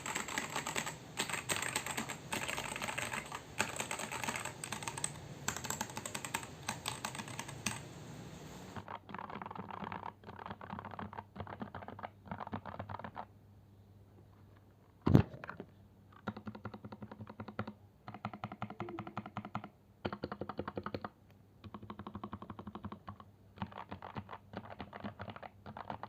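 Typing on a Daxa M84 Pro mechanical keyboard, its stabilizers lubed with Krytox GPL 205g0: fast continuous keystrokes for about the first nine seconds, then short bursts of typing with brief pauses between them. One sharp loud thump about fifteen seconds in.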